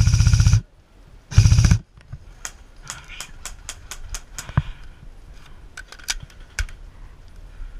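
Airsoft rifle firing two rapid full-auto bursts, the first cutting off just after the start and a shorter one about a second and a half in. These are followed by a scattering of sharp ticks and cracks.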